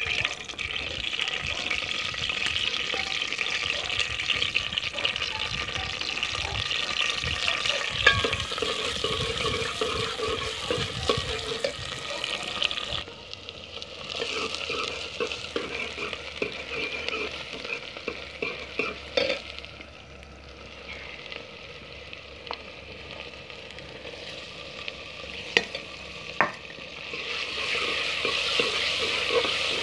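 Sliced onions sizzling as they fry in hot oil in an aluminium pot, stirred with a steel ladle that clicks against the pot a few times. The sizzling drops back about halfway through and picks up again near the end, with chopped tomatoes in the pot.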